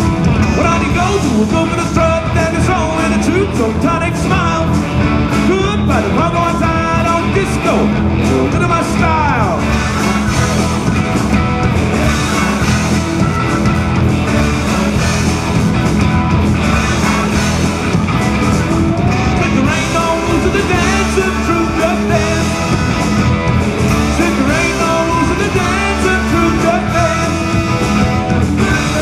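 Live mod-revival rock band playing, with guitars and lead vocals in parts.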